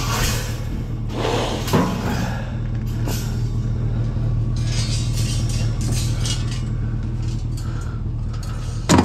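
Scrapes and knocks of heavy scrap metal being handled over a steady low hum, with a sharp clank about two seconds in and a loud clatter at the very end.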